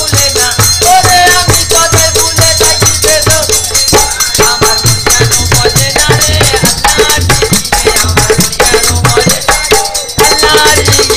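Instrumental interlude of Bengali folk devotional music: fast shaken rattle percussion and a steady drum beat under a melody line, played loudly between sung verses.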